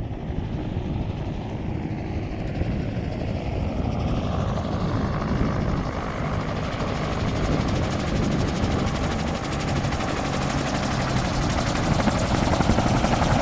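Skycruiser SC-200 gyrocopter's rotor and pusher propeller engine, growing steadily louder as it comes in low to land and draws close.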